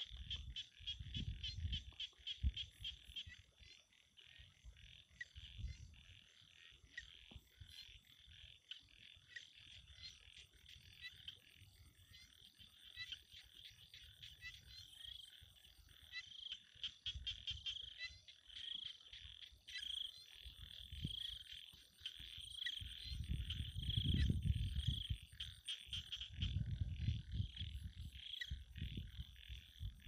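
Faint night chorus of frogs calling in rapid pulsed trills, with a run of evenly spaced calls through the second half. Low rumbles come and go underneath, the loudest about three-quarters of the way through.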